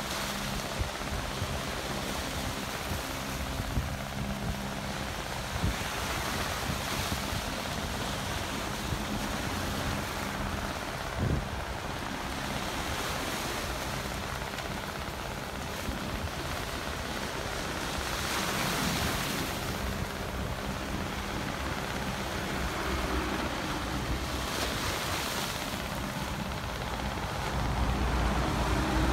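Small waves washing and breaking on a rocky shore, swelling every several seconds, over a faint low steady hum. A low rumble grows near the end.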